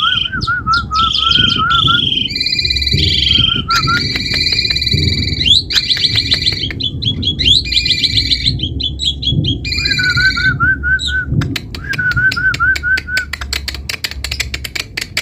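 Asian pied starling (jalak suren) singing continuously: a varied song of whistled phrases and warbling repeated notes, mixed with many sharp clicks. The clicks become a rapid chain near the end.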